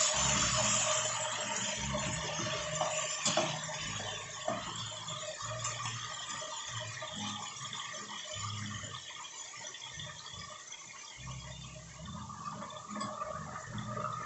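Pork steaks sizzling and bubbling in hot fat in a pot, steady throughout, with one sharp click a little over three seconds in.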